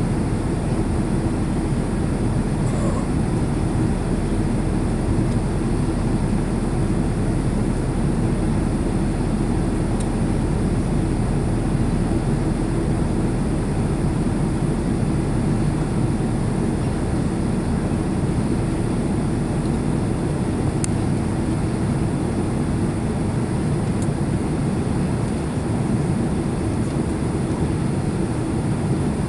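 Steady cabin noise inside a Boeing 767 airliner on descent: an even rumble of engines and airflow with a steady low hum.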